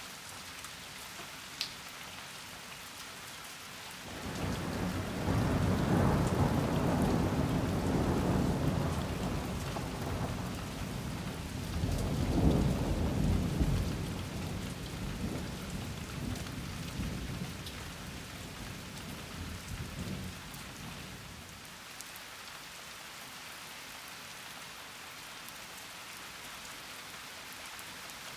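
Steady rain falling, with a long roll of thunder that comes in about four seconds in, swells twice and rumbles away about twenty seconds in.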